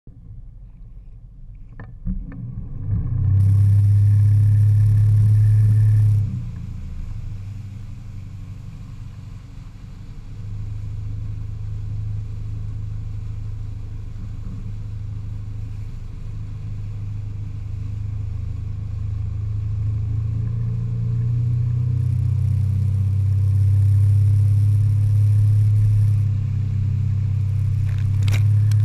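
Tow boat's engine pulling a barefoot water skier off the boom. It opens up loudly about three seconds in, eases back after a few seconds, then runs on with a steady drone that builds again later, over the rush of water spray.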